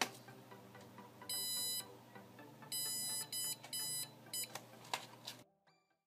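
Piezo buzzer of an Arduino ultrasonic-distance alarm beeping: five high, even-pitched beeps of uneven length starting about a second in, the alarm sounding as something comes within a few centimetres of the HC-SR04 sensor. A faint steady hum runs underneath, and everything cuts off near the end.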